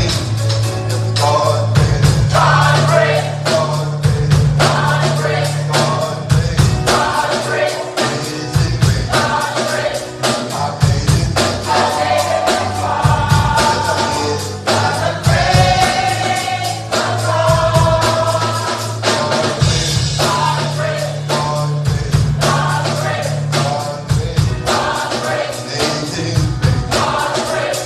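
Gospel music: a choir singing over a band, with a steady drum beat and held low bass notes.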